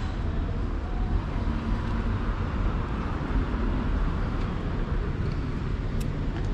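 City street ambience: steady traffic noise with a low rumble, and one sharp click near the end.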